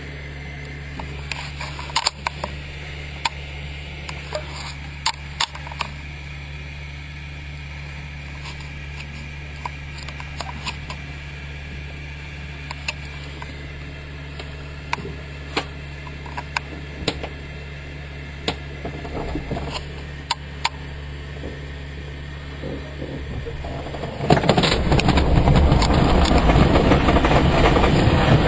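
Inside an ASK21 glider's cockpit: a steady low hum with scattered clicks and knocks, then near the end a sudden loud, rough rushing rumble as the glider starts its winch launch.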